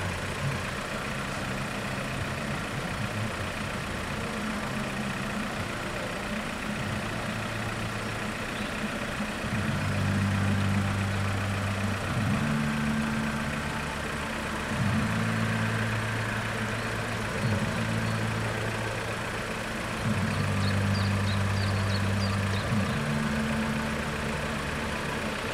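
Engines of waiting cars idling: a low, steady hum whose pitch pattern shifts every couple of seconds.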